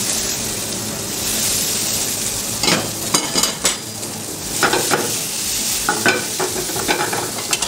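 Julienned tomato frying in hot oil with browned onions and whole spices: a steady sizzle. From about two and a half seconds in, a metal spoon scrapes and clinks against the frying pan several times as the mix is stirred.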